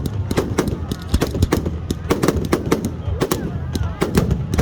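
Fireworks cakes firing a rapid, irregular string of sharp bangs, several a second.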